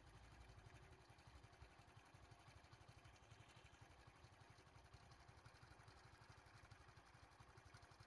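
Near silence, with a faint, steady low rumble of a vehicle engine idling.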